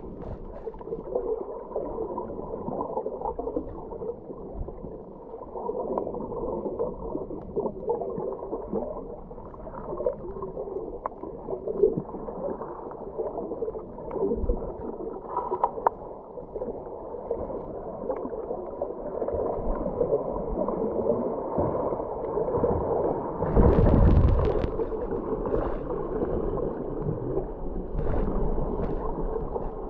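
Muffled underwater rush and gurgle of moving water around a camera held underwater while snorkelling, with a louder surge about three-quarters of the way through.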